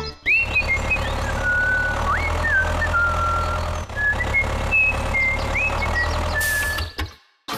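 A steady engine-like hum with a line of high held notes over it that step and slide between pitches, cutting off suddenly near the end.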